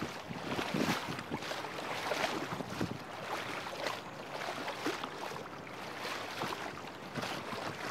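Water lapping and splashing irregularly against the hull of a Lancer 25 sailboat moving under sail, with a steady wash of wind and water behind it.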